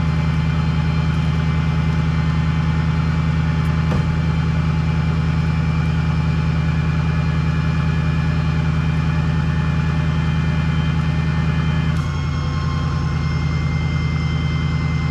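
Engine of a recovery truck idling steadily, with a small change in tone about twelve seconds in.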